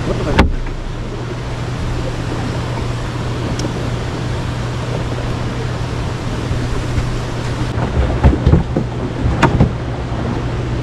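Boat motor humming steadily under wind and water noise, with a sharp knock about half a second in and a few more knocks near the end.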